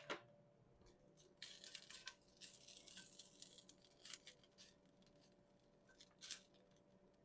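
Faint stirring of chopped cooked chicken in a frying pan with a utensil: a stretch of rustling scrapes about one and a half seconds in, then a few short scrapes.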